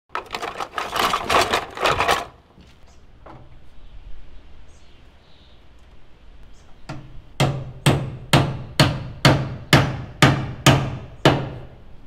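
Plastic electrical boxes clattering as a hand rummages through a cardboard box of them. About seven seconds in, a hammer drives a nail into a wooden wall stud: about ten sharp, evenly spaced strikes, two a second.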